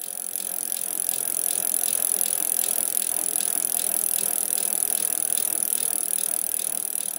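Bicycle rear wheel freewheeling, its hub ticking in a fast, even run of clicks that grows louder over the first second.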